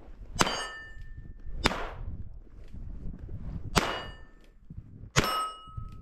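Four sharp pistol shots, spaced unevenly over about five seconds; three of them are followed by the bright metallic ring of a struck steel target.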